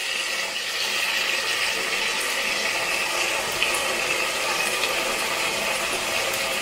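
Green beans sizzling and bubbling steadily in a pot on high heat as the last of their cooking water boils off, nearly cooked dry.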